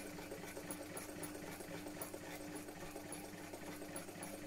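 Vintage electric sewing machine running steadily, stitching a line of staystitching along a fabric edge.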